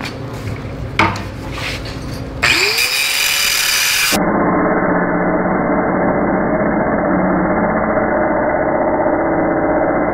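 Angle grinder with a cutoff wheel spinning up about two and a half seconds in, its pitch rising and then holding steady as it cuts through a tack weld on a 3/4-inch solid stainless steel round bar. A couple of knocks come before it starts.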